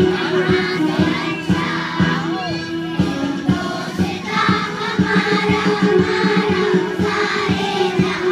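Children's choir singing over instrumental accompaniment, with held low notes and a steady beat. The voices grow stronger about halfway through.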